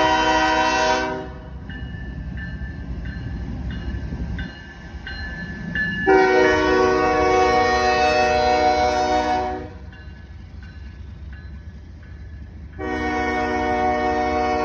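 Norfolk Southern locomotive air horn sounding a chord in long blasts: one ending about a second in, another of about three and a half seconds in the middle, and a third starting near the end. A low rumble of the train runs underneath, with a faint ringing repeating about twice a second between the blasts.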